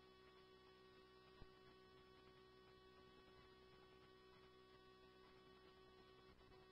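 Near silence in the scanner recording between radio transmissions: a faint steady electrical hum, with one small click about a second and a half in.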